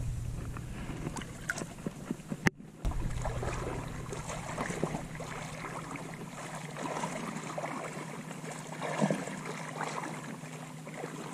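Shallow sea water lapping and sloshing, with small irregular splashes and a sharp click about two and a half seconds in.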